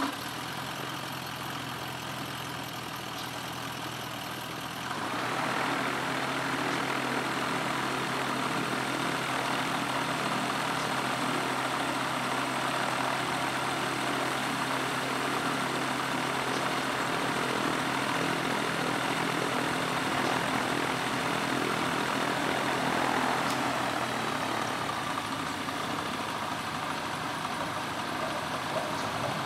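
Gyroplane's engine and pusher propeller starting up, then running steadily at idle. About five seconds in the engine is run faster and stays there, easing back a little near the end.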